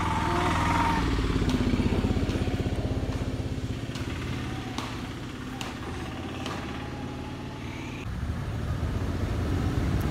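A small motor vehicle's engine running nearby with a fast steady pulse, louder over the first few seconds, easing off, then growing louder again near the end. A few light clicks sound over it.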